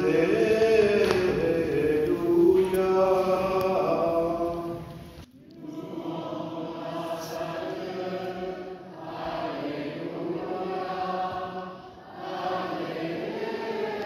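A group of voices singing a liturgical chant in phrases, with a brief break about five seconds in and another shorter one near the end.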